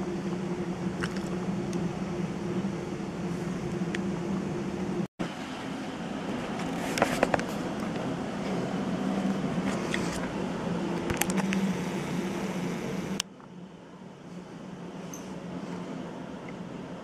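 Steady roar of a heavy rain and hail downpour, with scattered sharp clicks of hailstones striking close by. The sound cuts out for an instant about five seconds in and turns quieter near the end.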